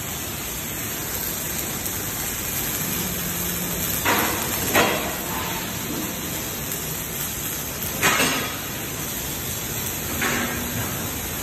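Welding robot's arc welding a square-tube frame on a positioner: a steady hiss with a few short, louder spurts of crackle, around four and eight seconds in.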